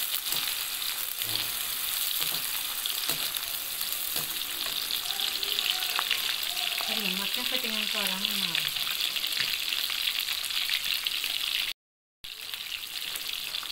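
Sliced onions sizzling steadily as they fry in hot oil in a metal wok, with a few scrapes of a slotted metal spoon in the first seconds. The sound breaks off for about half a second near the end.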